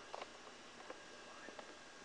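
Near silence: faint room hiss with a few soft clicks.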